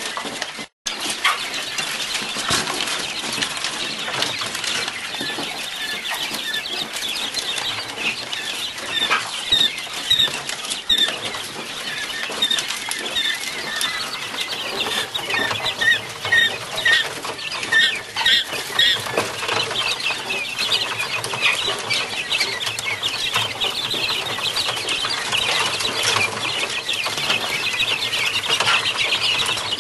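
Quail chicks peeping constantly, many short high calls overlapping and growing busier near the end. Under them comes the scratching and wing-fluttering of the chicks on the wire-mesh floor as a hand handles them.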